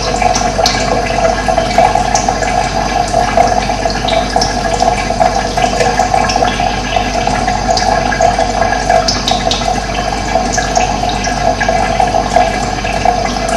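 Running water flowing steadily, with short high bird chirps scattered over it.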